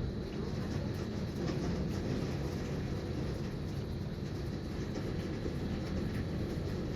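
Hail and heavy rain pelting down in a steady, dense clatter over a low rumble.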